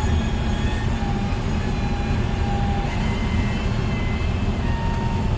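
Steady low drone of a truck's engine and road noise inside the cab while driving, with faint thin whines drifting above it.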